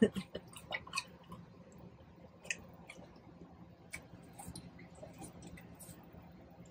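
Golden retriever mouthing and licking a piece of watermelon held out in a hand: faint wet clicks and ticks, scattered and irregular, over a faint low steady hum.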